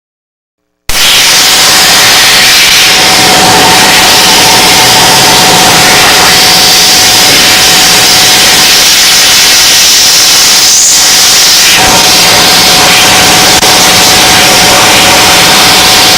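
Steam cleaner jet spraying: a loud, steady hiss that starts abruptly about a second in, with a steady whine underneath.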